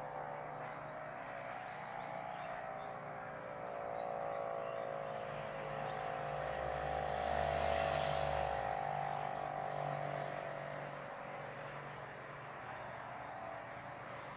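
Electromechanical civil-defence motor sirens sounding a steady tone in a test alarm. The tone swells to its loudest about halfway through and then fades as the rotating siren heads sweep past. Birds chirp throughout.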